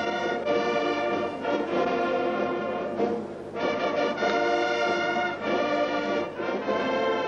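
Orchestral music with brass playing long held chords, briefly breaking off about three seconds in.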